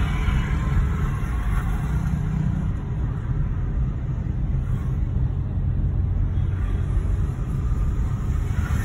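Steady low rumble of a car driving along a city street, its engine and road noise heard from inside the car, with the hum of surrounding motorcycle and car traffic.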